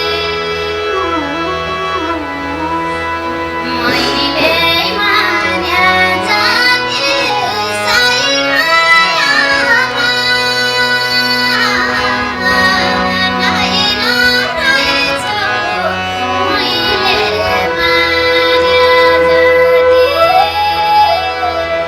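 A Nepali folk song from the far-west sung by a woman's voice over instrumental accompaniment. Steady held instrument notes open and close the passage around the sung melody.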